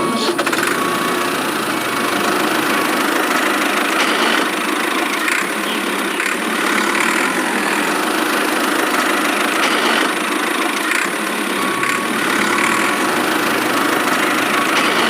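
Small motor of a DIY model machine running steadily, with an even mechanical hum and hiss.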